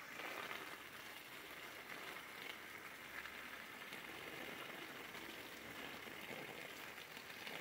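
Water spraying from a garden hose nozzle onto the ground, a steady faint hiss.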